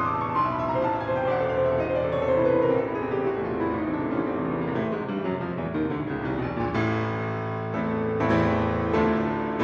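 Background piano music: a run of notes stepping downward over the first few seconds, then chords struck about once a second near the end.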